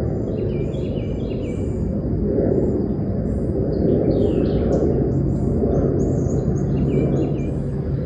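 Birds chirping and singing in many short phrases over a loud, low, rushing outdoor noise that rises and falls, with a faint steady high tone beneath.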